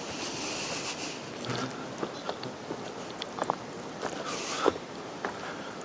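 Footsteps and rustling while walking over the campsite ground: scattered light crunches and clicks, with a short burst of rustling hiss at the start and another past four seconds in.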